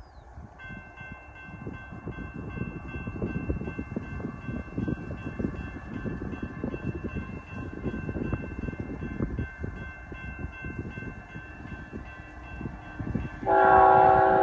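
A warning bell rings steadily at about two to three strokes a second over gusty wind on the microphone. Near the end, a freight locomotive's horn starts loud.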